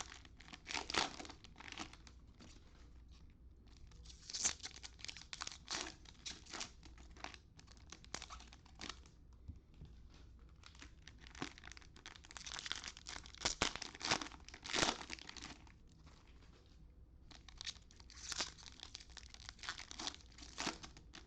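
Cellophane wrappers of trading-card cello packs crinkling and tearing as they are opened and handled, in irregular spells with short quiet gaps.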